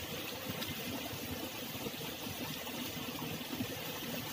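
Steady rush and babble of flowing canal water.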